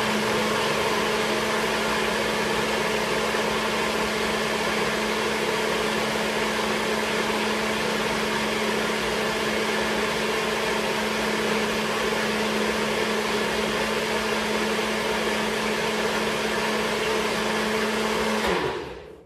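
NutriBullet blender motor running steadily at full speed, blending a watery dressing of pumpkin seeds, hemp hearts and citrus juice, then winding down and stopping near the end.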